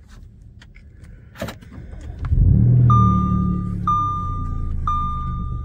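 A 2012 Audi B8 S4's supercharged 3.0-litre V6 starting: a sharp click, then the engine catches a little over two seconds in with a loud flare and settles to a fast idle, running with an exhaust leak from its burst downpipe flex sections. A dashboard warning chime repeats about once a second through the idle.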